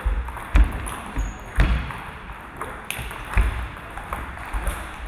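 Table tennis rally: the celluloid ball clicking off bats and table, a few sharp hits roughly a second apart, the loudest coming with low thuds, then a few lighter ticks as play stops.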